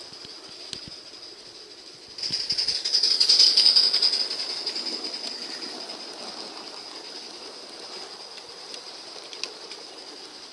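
Gauge 1 model passenger cars rolling past close by on curved garden track, their metal wheels clattering over the rail and squealing on the curve, swelling suddenly about two seconds in and fading away over the next few seconds. A steady high-pitched whine runs underneath.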